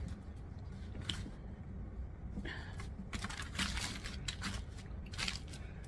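Aluminium foil crinkling in a handful of short rustles as flatbread is pulled from it and torn.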